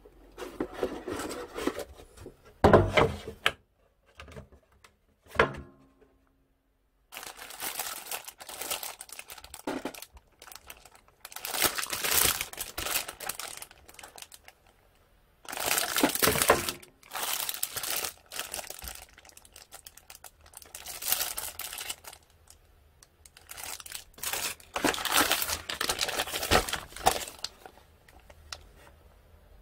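Clear plastic bags around model-kit sprues crinkling as they are handled, in irregular bursts with short pauses.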